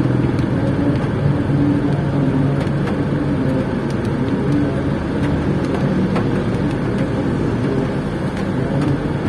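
Steady vehicle engine hum heard from inside a car, with a few faint ticks.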